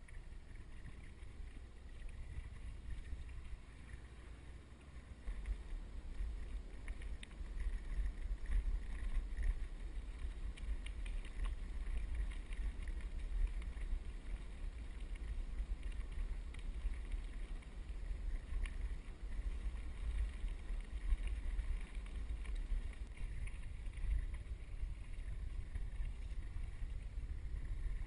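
Low rumble of wind buffeting the microphone, growing louder about five seconds in, with faint scattered ticks above it.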